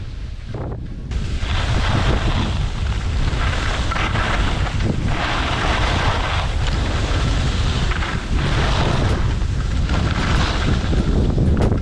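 Wind buffeting the microphone, a heavy low rumble that gets louder about a second in, with swells of hiss rising and falling every couple of seconds.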